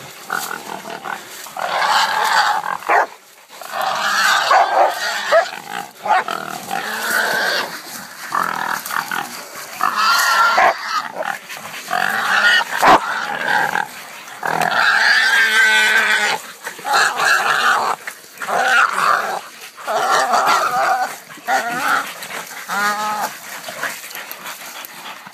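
Caught wild sow squealing again and again in loud, strained cries with short breaks between them, the sound of a hog pinned by hunting dogs.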